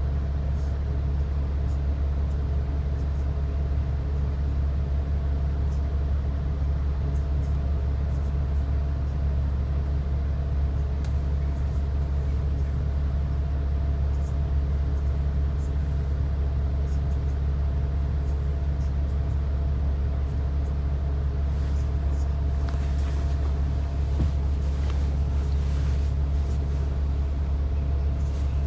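Bus heard from inside, running at a steady speed: a constant low engine drone with road rumble, and a few faint rattles over the last several seconds.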